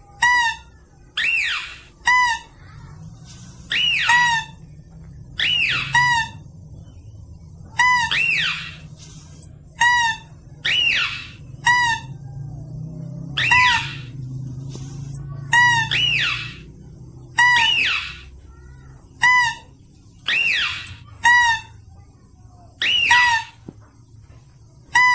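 Mouse-deer (kancil) lure call: a short, shrill squeak followed by a rising-and-falling whistled note, repeated over and over every one to two seconds.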